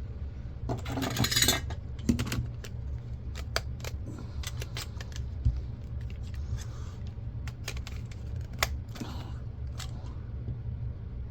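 Scattered clicks and clinks of hand tools working on small metal and plastic parts of an old camcorder's optical housing, with a longer rattling scrape about a second in. A steady low hum runs underneath.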